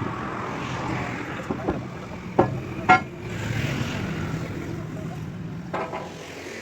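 A steady low engine-like running noise with several sharp metallic knocks on it, the loudest two about two and a half and three seconds in, the last one ringing.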